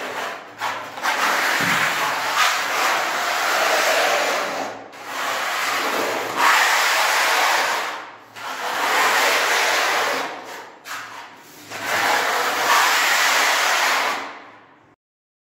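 Putty blade scraping wall putty across a wall, in long rasping strokes of one to three seconds with short pauses between them. It stops shortly before the end.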